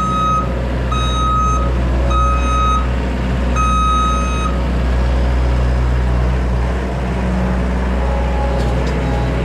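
Small skid steer's engine running steadily while its reverse alarm beeps about four times, the beeping stopping about halfway through as the machine stops backing.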